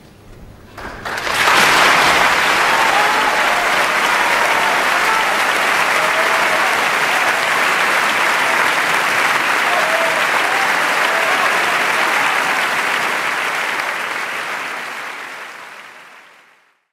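Large concert-hall audience applauding. It breaks out about a second in, as the final notes of the orchestra die away, holds steady, and fades out near the end.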